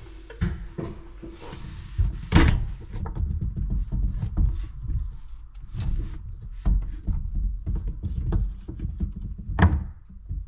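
Irregular knocks, taps and clatter of plastic waste pipe and fittings being handled and pushed together, over a low handling rumble. Two louder thumps come about two and a half seconds in and near the end.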